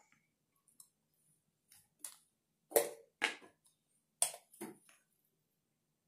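Short clicks and knocks of kitchen things being handled as frosting ingredients go into a pan, about six in all, the loudest near the middle.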